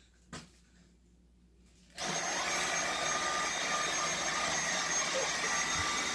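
Dyson vacuum cleaner switched on about two seconds in, its motor then running steadily: a loud rush of air with a steady high whine.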